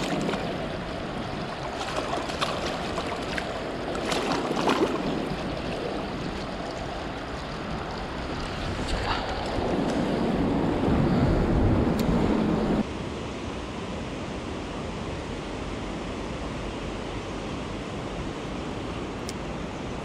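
Fast mountain river water rushing over stones at close range, a steady rush with a few splashes near the start as a small trout is let go at the water's edge. The rush drops suddenly in level about two-thirds of the way through.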